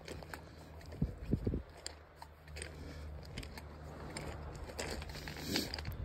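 Footsteps crunching on a pebble beach, stones clicking and crackling underfoot, with a few heavier footfalls about a second in.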